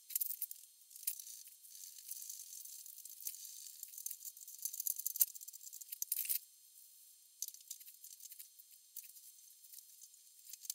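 Faint clinking and rustling of hand tools and steel suspension parts being handled, with a few small sharp clicks.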